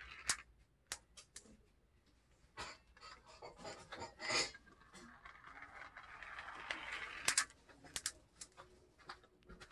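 Plastic marble-run track pieces being handled: scattered sharp clicks and clacks, with a denser clatter around the middle and a cluster of sharp clicks past the middle.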